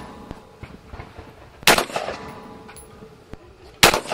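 Two rifle shots from a scoped AR-15 firing .223/5.56, about two seconds apart, each a sharp crack followed by a brief echo. A few fainter pops sound in between.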